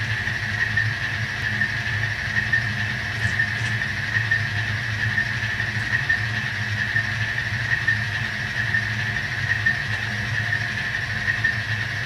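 DCC sound decoder in an HO-scale Kato GE AC4400CW model locomotive playing a steady diesel idle through the model's small onboard speaker: a low engine drone with a thin high whine above it.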